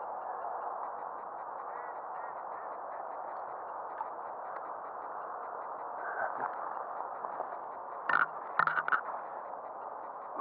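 Steady, even outdoor noise of rippling lake water close by, broken about eight seconds in by a quick run of sharp clicks and knocks.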